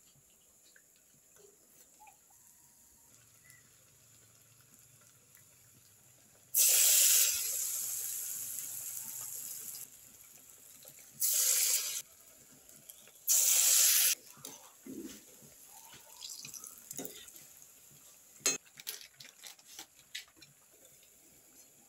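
Raw falafel going into a wok of hot oil: loud sizzling begins about a third of the way in and fades over about three seconds, then comes in two shorter loud bursts. A few light clicks follow near the end.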